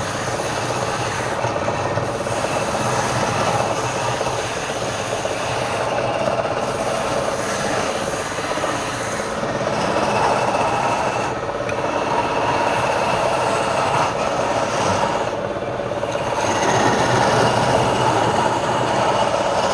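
Woodturning lathe running: a steady mechanical whir with thin high whining tones over it, swelling slightly now and then.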